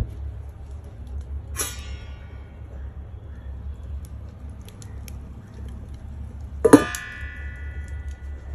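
A steel plate set on a clay cooking pot as a lid: a light metal clink about a second and a half in, then a loud clang near the end that rings on for almost two seconds, over a low steady rumble.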